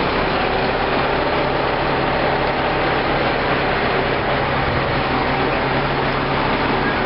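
An engine running steadily at a constant speed, an even hum over a dense mechanical noise.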